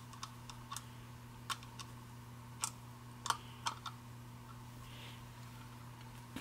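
Scattered light metallic clicks, about ten at uneven intervals, as a nut driver turns small nuts onto the threaded studs on the back of a tractor gauge. A steady low hum runs underneath.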